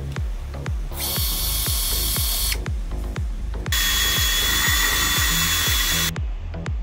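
Cordless drill spinning a cutting disc into a small soft wooden block, cutting a groove. It comes in two bursts: a short one about a second in, then a louder run of about two and a half seconds starting near the four-second mark.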